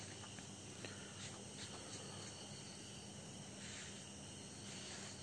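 Faint, steady chirring of crickets at night, over a low steady hum.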